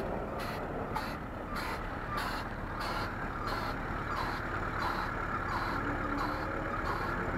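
Air suspension of a lowered classic Lada Zhiguli pumped up and down ("popping"), its valves letting air in and out in short hissing bursts about twice a second.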